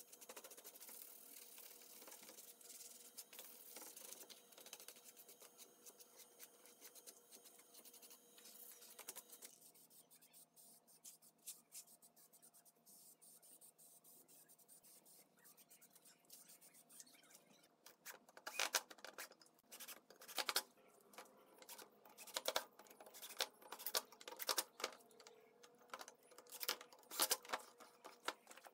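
Hand sanding of pine with fine 180-grit sandpaper: a faint, steady scratching rub for the first nine seconds or so. After a quieter stretch, from about two-thirds of the way in, comes a run of sharp clicks and knocks as spice jars and their lids are handled and fitted into the wooden rack.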